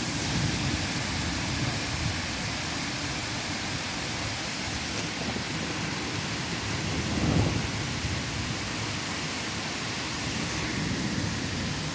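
Rain falling steadily in a thunderstorm, with low rumbles of thunder; the strongest rumble swells up about seven seconds in.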